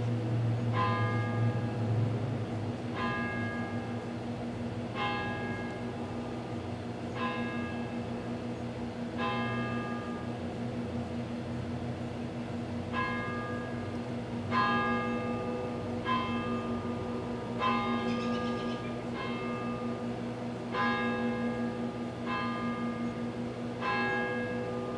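Bell chimes struck every second or two at changing pitches, like a slow bell melody. Under them runs a steady electrical hum from the microwave oven running.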